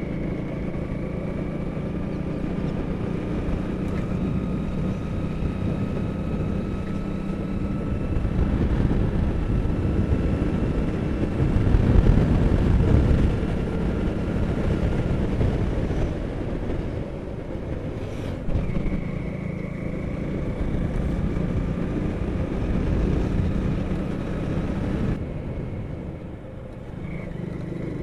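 Motorcycle engine running steadily under way, its whine climbing slowly in pitch. A louder low rumble comes about midway, and the engine note drops briefly near the end as the throttle eases.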